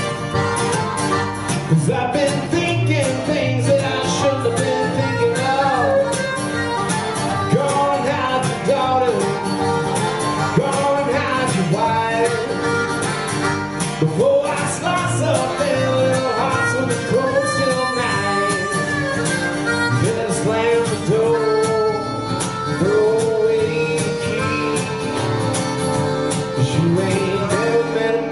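Harmonica playing a bending, wailing lead line over acoustic guitar strumming, a live instrumental break.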